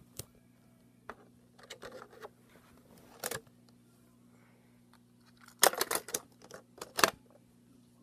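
Handling noise from a Teddy Ruxpin toy: scattered plastic clicks and knocks, with a quick run of sharp clicks about five and a half to seven seconds in, over a faint steady hum.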